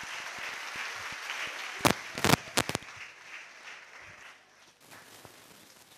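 Theatre audience applauding, dying away after about four seconds, with a few loud sharp cracks about two seconds in.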